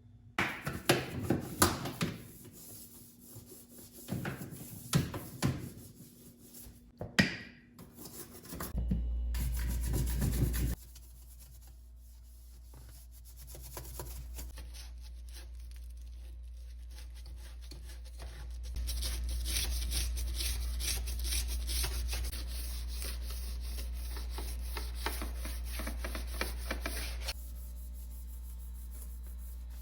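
Scrubbing during cleaning of a dishwasher's interior, in irregular rubbing strokes. A low steady hum joins about nine seconds in, and a denser, brighter stretch of scrubbing follows later.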